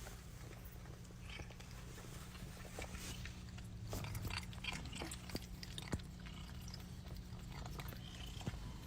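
A cat chewing, with small irregular clicks and crunches over a low steady hum.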